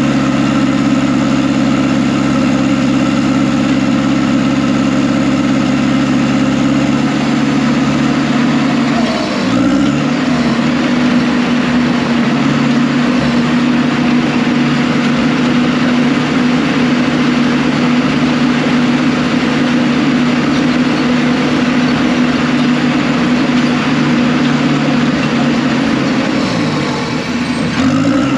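Diesel engine of heavy earthmoving equipment running steadily at working speed, its pitch dipping and recovering briefly about nine seconds in and again near the end.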